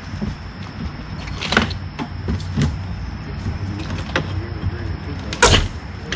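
Scattered knocks and taps from hands and tools working on a wooden door frame, the loudest near the end, over a steady low hum.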